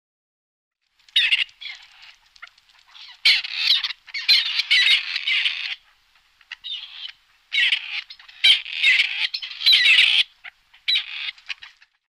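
Partridge calling: a series of harsh, scratchy calls in bursts of about half a second to two seconds, starting about a second in, with a short pause about halfway.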